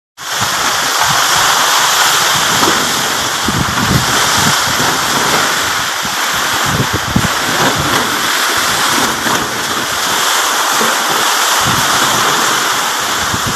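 Heavy rain and hail pelting down in a strong windstorm: a loud, steady rush of noise that starts abruptly, with wind thumping on the microphone.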